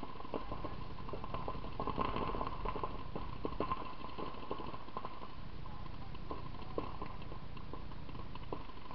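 Paintball markers firing at a distance in irregular strings of sharp pops, several a second, busiest about two to four seconds in.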